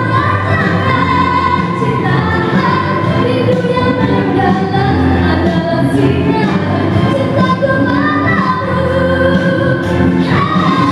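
A woman singing into a handheld microphone, amplified over a musical backing track.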